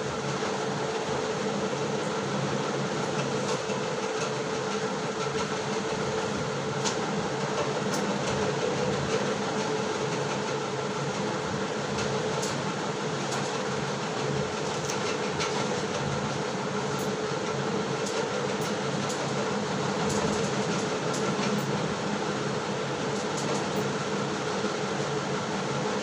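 Steady whirring hum of a fan, even and unchanging, with a few faint clicks now and then.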